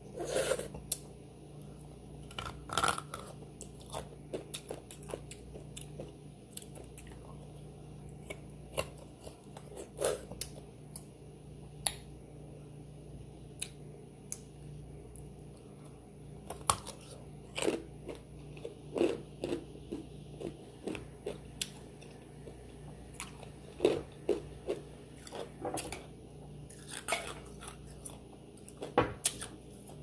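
Close-miked eating: irregular bites, wet mouth clicks and chewing, with clusters of louder bites near the start, in the middle and near the end, over a faint steady low hum.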